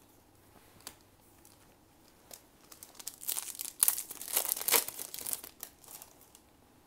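A trading-card booster pack wrapper being torn open and crinkled by hand, a dense crackling that starts about three seconds in and lasts about three seconds, after a few light clicks of cards being handled.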